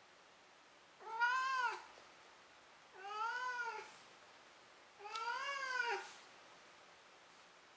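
Domestic cat meowing three times after catching a toy in play. Each meow is about a second long and rises then falls in pitch, about two seconds apart.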